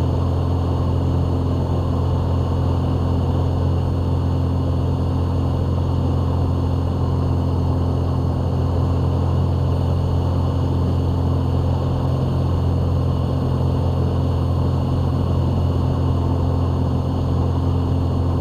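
Steady drone of a Van's RV-7 light airplane's piston engine and propeller, heard from inside the cockpit in flight.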